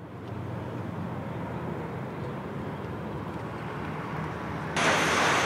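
A steady low rumble fades in. Just before the end it switches suddenly to louder, hissing car-factory machinery noise.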